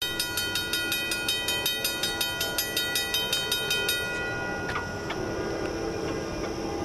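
Railroad grade crossing bell ringing rapidly, about five strikes a second, while the gate arm lowers. It stops about four seconds in, once the gate is down, leaving a steady low rumble.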